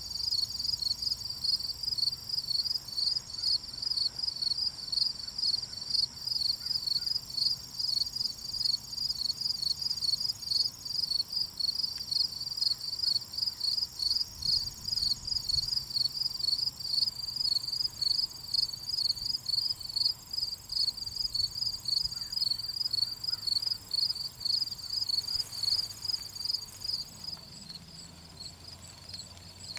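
Insects singing in a soybean field: a loud, high-pitched chirp pulsing evenly a few times a second, with a fainter steady buzzing trill above it. The chirping eases off near the end.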